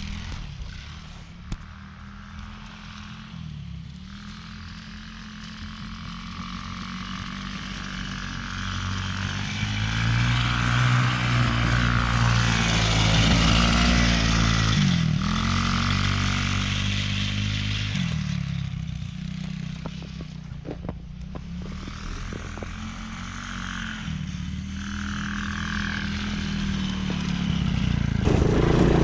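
Small 110cc single-cylinder ATV engine running and revving up and down as it pushes through snow. It is loudest in the middle and climbs again near the end.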